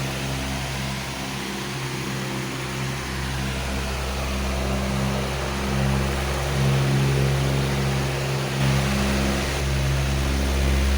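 Powerful electric fan running steadily: an even rush of moving air over a low motor hum that wavers in strength.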